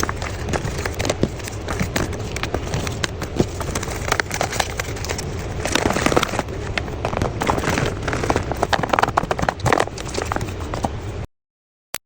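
Crinkling, rustling and clicking of a blind-box toy's packaging being handled and opened, a dense run of irregular crackles. It cuts off abruptly near the end, followed by a few short blips.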